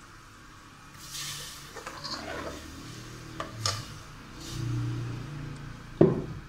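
Kitchen handling sounds at an aluminium pressure cooker: a short rustle about a second in, a few light clicks, and one sharp knock on the pot about six seconds in.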